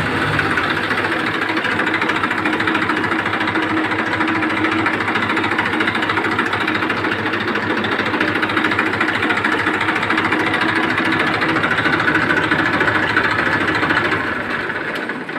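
Massey Ferguson 1035 DI tractor's three-cylinder diesel engine idling steadily just after being started. The sound falls away near the end.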